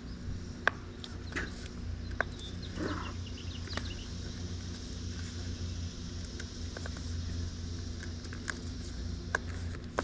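Scattered small clicks and rubbing of a road bike tire's bead as gloved hands push it over the rim edge, over a steady low background hum.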